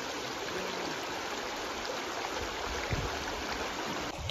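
Shallow river water running steadily over rocks and stones, with a low thud about three seconds in.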